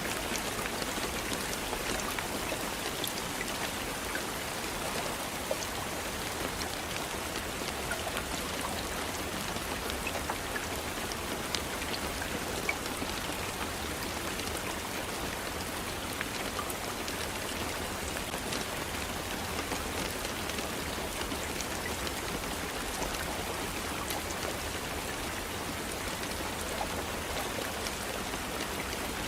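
Steady rainfall, with individual drops ticking on a surface over an even hiss.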